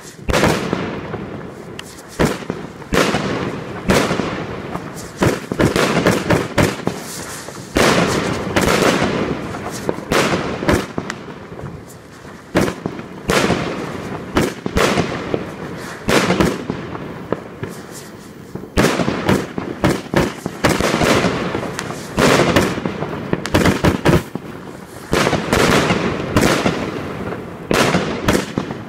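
A Pangu Fireworks 'Garden Party 1' 150-shot cake firing shot after shot, roughly one a second: each sharp launch thump is followed by the burst and dense crackling of glitter shells overhead.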